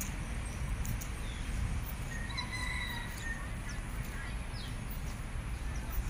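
A rooster crowing once, about two seconds in, a single call lasting about a second, over a steady low rumble.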